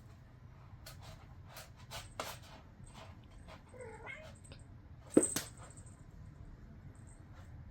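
Scattered small clicks and rustles of a cat moving about, with one short cat mew about four seconds in and a single sharp knock a little after five seconds.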